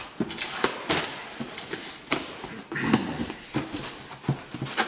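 Scissors cutting through the tape and plastic wrap on a cardboard box, then the cardboard flaps being ripped and pulled open: a run of irregular scrapes, rips and crinkles.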